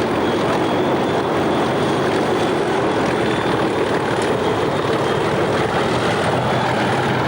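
Class 37 diesel locomotives hauling a train, their engines making a steady, even drone.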